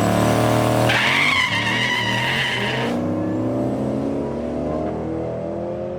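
Drag car engine held at high revs while its tyres spin and squeal for about two seconds, as in a burnout. The engine keeps running after the squeal stops, its pitch easing slightly.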